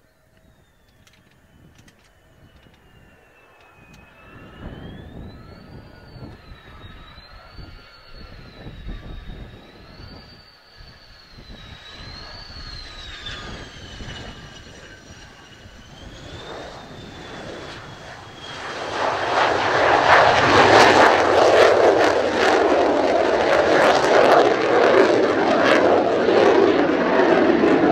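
Mitsubishi F-2's single F110 turbofan on a low-power simulated flame-out approach, growing louder with a whine that rises and falls in pitch. About two-thirds of the way in, the engine goes to high power for the touch-and-go and a loud, crackling jet roar takes over as the fighter climbs away.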